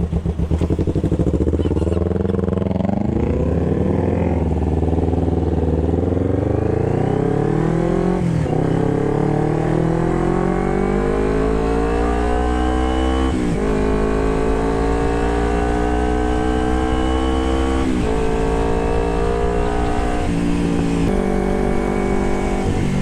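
Carburetted Kawasaki Ninja 250 parallel-twin with a Termignoni exhaust accelerating through the gears. The revs climb steadily, then dip briefly at each of four upshifts, roughly 8, 13, 18 and 20 seconds in.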